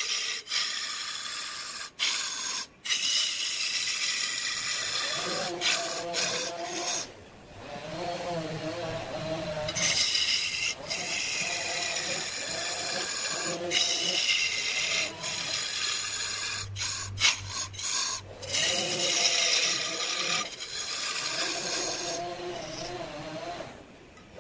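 A hand-held gouge cutting into a large log spinning on a wood lathe, a steady rasping hiss of shavings being peeled off. The hiss is broken by several brief gaps where the tool lifts off the wood.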